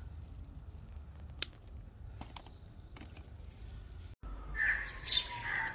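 Scissors snipping chilli stems, a few sharp clicks over a low rumble of wind on the microphone. About four seconds in the sound cuts abruptly to birds calling, a few short loud calls and one falling call.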